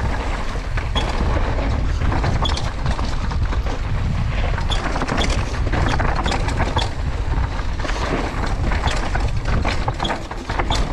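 Mountain bike riding fast down a dirt bike-park trail, heard from a rider-mounted action camera: a steady low rumble with frequent rattles and knocks as the bike runs over the bumps.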